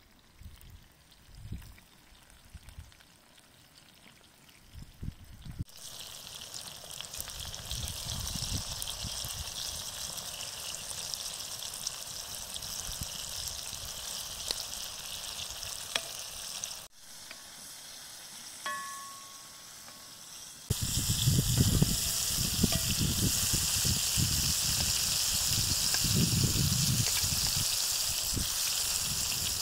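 Zucchini slices frying in oil in a black wok over a wood fire: a steady sizzle that starts about six seconds in, dips briefly in the middle, then comes back louder.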